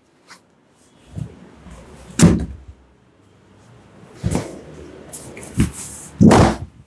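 Hand slaps of a barber's head and back massage: about five sharp slapping strikes at uneven intervals, the loudest a little over two seconds in and near the end.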